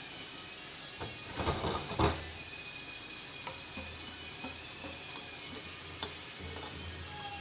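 Perforated steel strainer knocking and scraping against a steel pot as it scoops boiled kachnar buds out of the water, with water sloshing and draining. A cluster of sharp metal knocks comes about one to two seconds in and a single click near six seconds, over a steady hiss.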